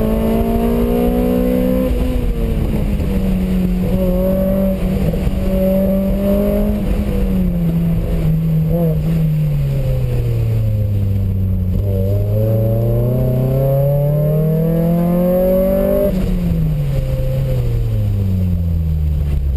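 Car engine working through an autocross run, its revs rising and falling as the driver accelerates and brakes. The revs sink lowest about halfway through, then climb again and fall off near the end, over a steady rumble of road and wind noise.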